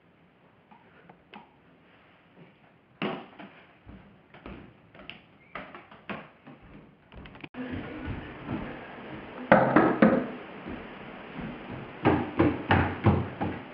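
Knocking on a wooden door: a loud cluster of knocks about ten seconds in, then a quick run of about five sharp knocks near the end. Before them come scattered light taps and clicks.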